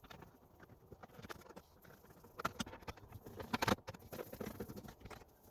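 Irregular light clicks, taps and knocks of plastic dash parts being handled and fitted, with louder clusters of clicks about two and a half and three and a half seconds in.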